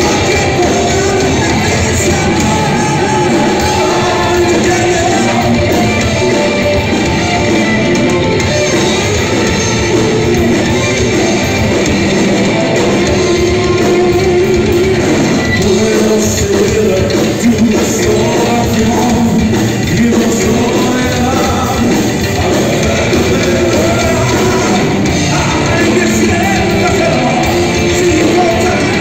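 Heavy metal band playing live through the PA: electric guitars, bass and drums, with a male singer's vocals over them.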